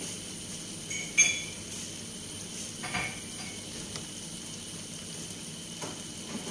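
Food sizzling in a pan with a steady hiss. A sharp metallic clink, like a utensil striking the pan, comes about a second in, and a lighter one about three seconds in.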